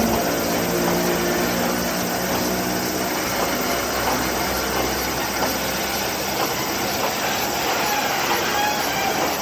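Chichibu Railway Deki 500 electric locomotive pulling away with a freight train of hopper wagons. Its motor hum fades over the first few seconds, and the wagons roll by with a steady rumble and a few clicks of wheels over rail joints.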